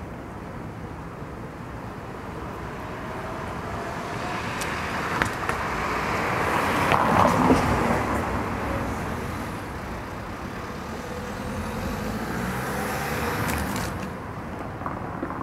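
Street traffic: a motor vehicle passes, swelling to its loudest about halfway through and then fading, followed by a smaller second swell near the end. A few sharp clicks are heard around the loudest point.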